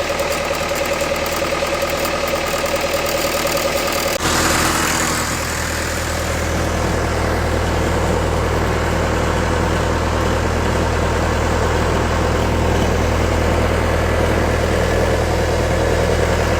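Engine of a Lincoln SAM 400 engine-driven welder running steadily just after start-up. About four seconds in its note changes and a deeper hum settles in.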